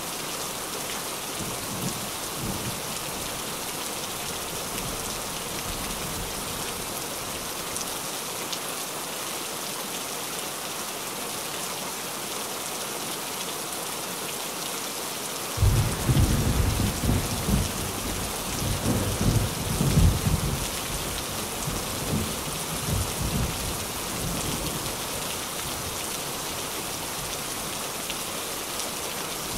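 Steady heavy rain falling on a tin roof. About halfway through, thunder breaks in suddenly and rumbles for several seconds before fading back under the rain.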